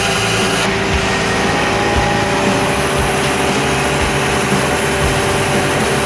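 Ford F550 tow truck's engine running steadily while the wrecker boom takes up tension on the seat-belt hookup.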